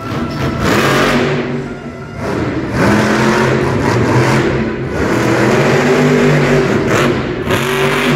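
El Toro Loco monster truck's supercharged V8 engine revving hard in several long bursts, its pitch rising and falling as the driver works the throttle.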